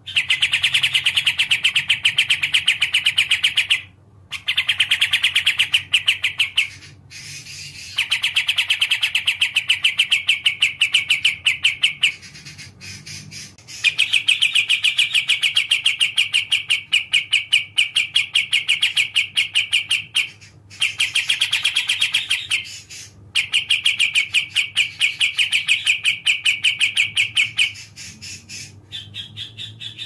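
Kapas tembak songbird singing a fast, even trill of rapidly repeated notes, delivered in phrases of a few seconds each with short breaks between them.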